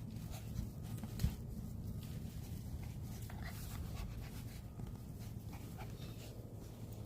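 Puppies moving about, with a sharp knock about a second in, over a steady low rumble.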